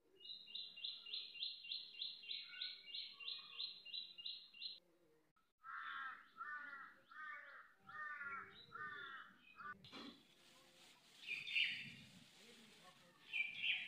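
Birds calling: first a fast run of about a dozen high, evenly spaced notes, then a slower series of five lower, arching calls. A sharp click comes about ten seconds in, followed by a few more high chirps.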